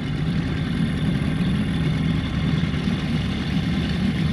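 Veterok-8 two-stroke outboard motor, fitted with a Stihl MS 660 chainsaw carburettor, idling steadily.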